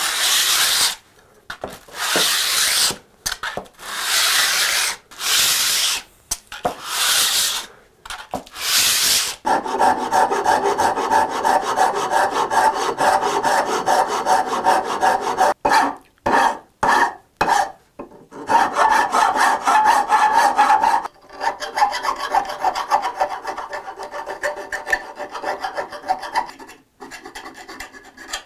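Sandpaper being rubbed by hand over a handmade infill plane. It starts with about six slow, separate strokes, then changes about a third of the way in to fast, continuous back-and-forth scrubbing. There are a few short breaks partway through, and the scrubbing eases off near the end.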